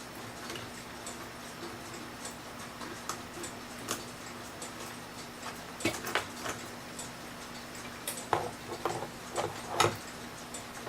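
A clock ticking steadily, about two ticks a second, with louder clinks and knocks from metal clock-movement parts being handled and pulled apart around the middle and again near the end.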